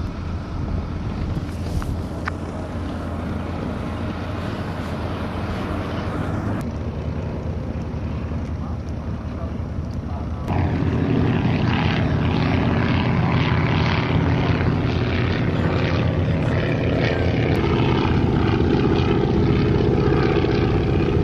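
Propeller airplane piston engines running steadily, with abrupt changes about six and ten seconds in. After ten seconds the sound is louder, a steady pitched drone.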